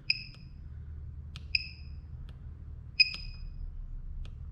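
PCB battery spot welder's buzzer giving three short high beeps about a second and a half apart as it is switched on and set to its mode, with faint clicks in between over a steady low hum.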